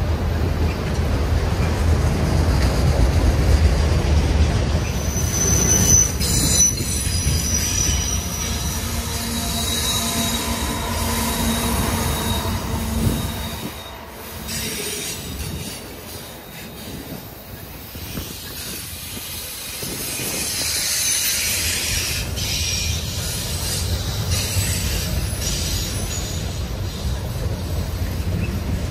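A CSX freight train's autorack cars rolling past, with a steady low rumble and high-pitched wheel squeal coming and going. The train sounds quieter for a few seconds in the middle.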